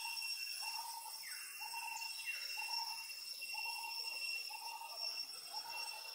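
Jungle ambience: a steady, high-pitched insect drone, with a lower note repeating about once a second. Two short falling calls come about a second apart, within the first few seconds.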